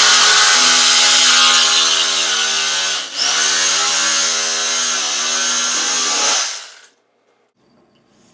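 Electric carving knife running as it cuts through slab foam: a steady buzzing motor hum with a hiss over it. The hum dips briefly in pitch about three seconds in, then the knife is switched off with a couple of seconds to go.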